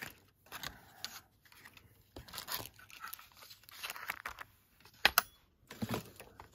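Rummaging through a box of craft punches and cut paper pieces: irregular rustling and crinkling with scattered clicks, and a sharper click about five seconds in.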